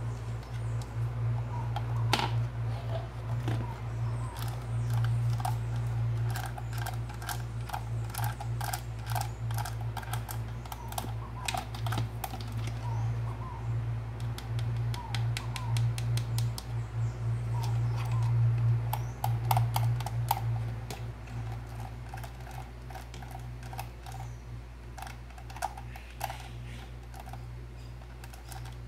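Plastic three-slot manual knife sharpener being handled: irregular plastic clicks and taps, at times in quick runs like typing, thinning out after about twenty seconds. Under them runs a low steady hum.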